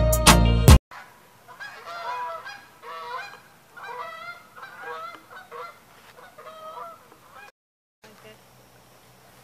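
Music stops abruptly under a second in. Then comes a run of short honking animal calls, about two a second, which end at a brief dead-silent cut, after which only a faint low hum remains.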